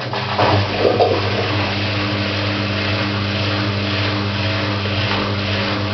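Siemens washing machine running: a steady motor hum with water rushing, starting abruptly.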